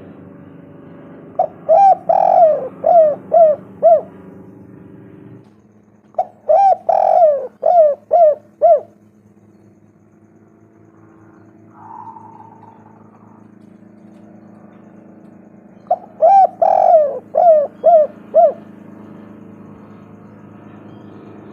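Spotted dove (tekukur) cooing: three phrases, each a quick run of about six coos, the second coming a few seconds after the first and the third after a longer pause. A steady low hum runs underneath.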